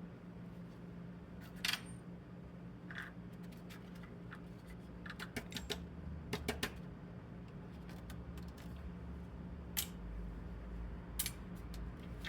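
Scattered sharp clicks and taps of small hard parts and tools being handled on a workbench, irregular and bunched in a quick cluster midway, over a steady low hum.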